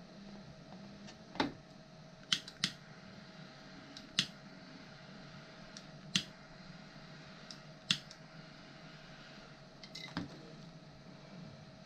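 Light clicks and taps from small parts or hand tools being handled on a workbench: about nine sharp, irregularly spaced knocks over a faint steady hum.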